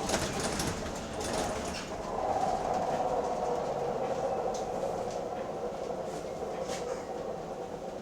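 The weird whine of a London double-deck bus heard on board: a steady whining in several close tones that grows louder about two seconds in, then slowly fades, with a few faint clicks.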